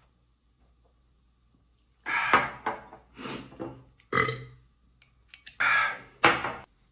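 A man burping five times in a row, short pitched burps, starting about two seconds in after near silence.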